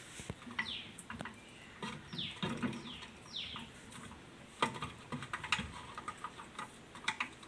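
Clicks and taps of hand work fitting a refrigerator's interior lamp holder and its wiring, with four short falling squeaks in the first half.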